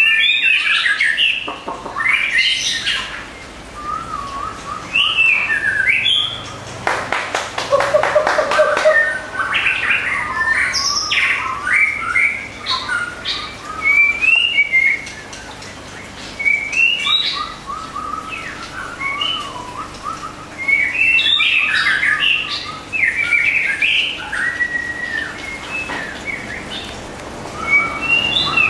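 Caged white-rumped shama singing a long, varied song of rich whistled phrases with quick up-and-down glides. A harsh buzzy rattle comes in about seven seconds in.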